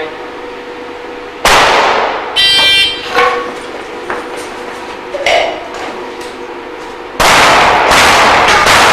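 Pistol shots on a practical shooting range, with steel targets clanging and ringing as they are hit. A single shot comes about a second and a half in, then a couple of lighter rings, and near the end a rapid string of shots begins.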